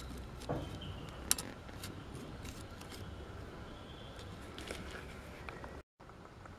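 A few faint, short metallic clicks and ticks from piston ring expander pliers being worked on a diesel piston's rings, the sharpest one about a second in.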